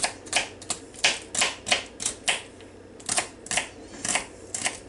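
Small kitchen knife chopping celery on a cutting board: quick, even strikes of the blade through the stalk onto the board, about three a second, with a short pause about halfway through.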